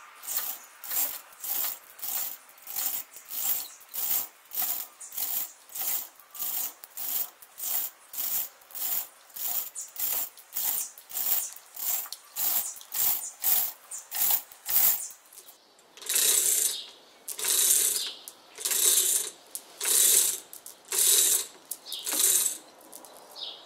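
Manual chain hoist being worked hand over hand to lower a hanging load. Its ratchet clicks steadily about twice a second, then from about two-thirds of the way in the strokes turn into longer chain rattles about once a second.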